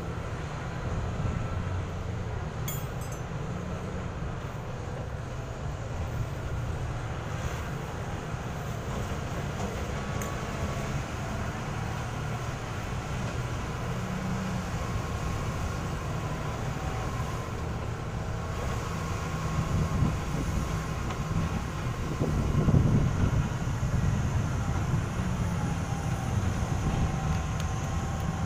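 Heavy diesel engine running steadily with a low rumble, swelling louder for a moment about three-quarters of the way through.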